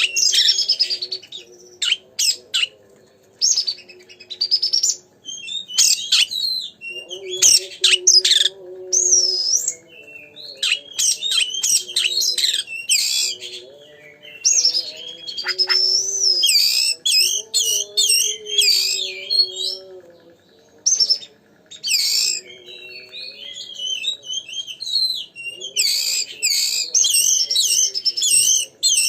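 Oriental magpie-robin (kacer) in full song: a fast, varied run of loud whistles, rising and falling glides and sharp chirps with brief pauses. A faint low droning tone sits underneath, stepping between a few pitches.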